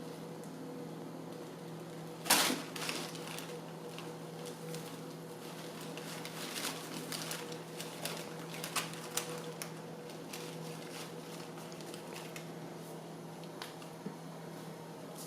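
Hexbug Nano toy's vibration motor buzzing steadily inside a box. A sharp knock comes about two seconds in, and scattered clicks and taps follow a few seconds later.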